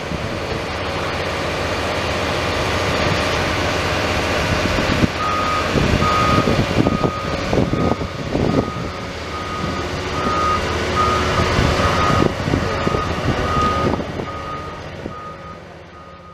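Diesel construction plant running, with a reversing alarm beeping steadily at about one and a half beeps a second from about five seconds in. A few heavy knocks sound in the middle.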